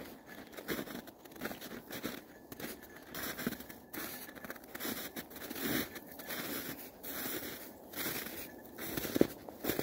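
Footsteps crunching in snow at a walking pace, each step a short crunch, with one louder crunch near the end.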